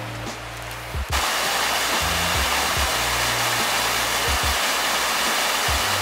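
Rushing water of a small waterfall cascading over rocks in a creek, a loud steady rush that cuts in suddenly about a second in.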